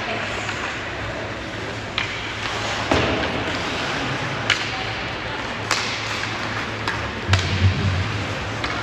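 Ice hockey game in a rink: a handful of sharp clacks of sticks and puck, over a steady low hum and the general noise of the arena.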